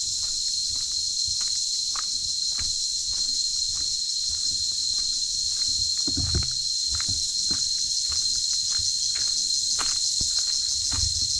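A steady, high-pitched chorus of insects, with footsteps on a concrete path about twice a second beneath it.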